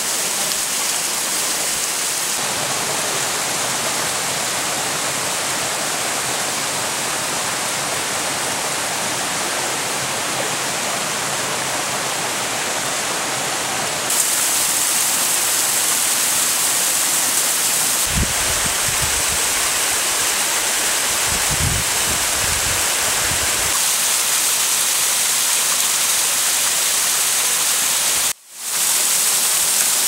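Water rushing down a partly frozen waterfall, still running beneath its icicles: a steady rushing noise that shifts in tone a couple of times. It has a few seconds of low rumbling midway and a brief dropout near the end.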